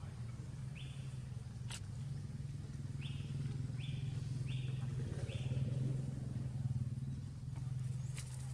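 Steady low engine hum, with five short high chirps between about one and five and a half seconds in and a single sharp tick a little before two seconds.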